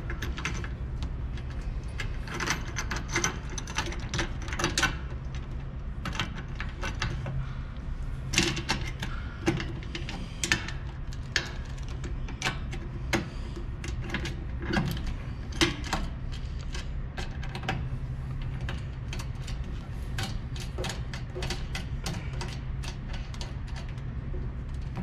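Irregular metallic clicks and clinks as a KF25 clamp and a corrugated stainless steel bellows hose are handled and fitted onto a vacuum port. A steady low hum runs underneath.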